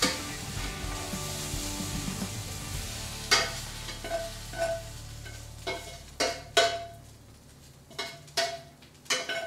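Browned beef sizzling in a stainless steel frying pan, the sizzle fading after about three seconds. Then a metal utensil clinks and scrapes against the pan about ten times as the beef is moved into the crock pot, several clinks ringing briefly.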